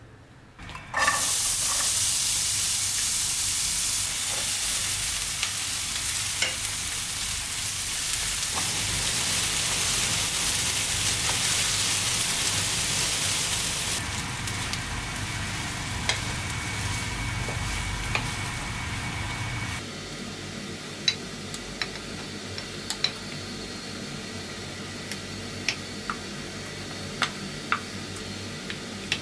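Vegetables and beef sizzling in a frying pan as they are stirred with a wooden spatula. The sizzle starts suddenly about a second in and is loudest in the first half, then grows softer, with light ticks and scrapes of the spatula against the pan.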